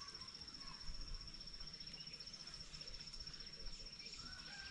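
An insect trilling steadily, a fast, even, high-pitched pulsing, over quiet outdoor ambience, with a faint long whistle sliding slightly downward near the end.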